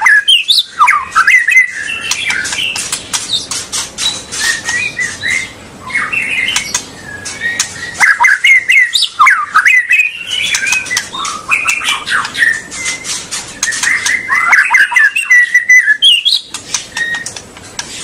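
White-rumped shama singing a loud, varied song of quick whistled phrases mixed with many sharp clicking notes, phrase after phrase with hardly a pause.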